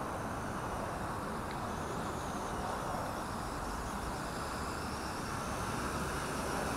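WLtoys V950 RC helicopter in flight, its semi-brushless motor and rotors making a steady, even whir.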